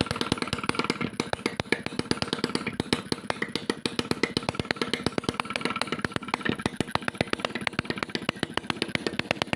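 Homemade two-stroke engine built from a refrigerator compressor, running with a rapid, even train of sharp firing pops.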